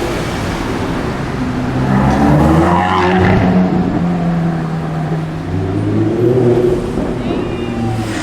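Audi R8 V10 Plus's V10 engine through a Capristo aftermarket exhaust, accelerating: its pitch climbs from about two seconds in, drops back, climbs again and steps down near the end, like revs rising and falling through gear changes.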